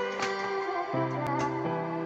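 Background music: a gentle instrumental of held notes, its bass note stepping down about a second in.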